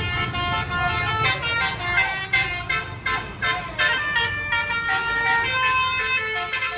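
Bus telolet horn, a Basuri multi-trumpet musical horn, playing a quick melody of changing notes over the bus's engine rumble.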